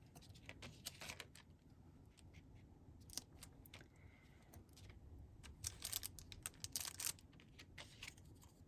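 Faint, scattered small clicks and rustles of hands working small paper pieces and 3D foam adhesive, in a few short clusters.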